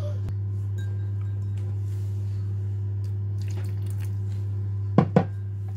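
Water trickling in a thin stream into a glass bowl of gram-flour batter mix, then two sharp knocks on the glass bowl near the end, over a steady low hum.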